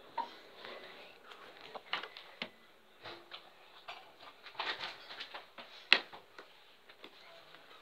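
Scattered clicks, knocks and rustling of a phone being handled and moved about, its case rubbing on a knitted jumper, with one sharp knock about six seconds in.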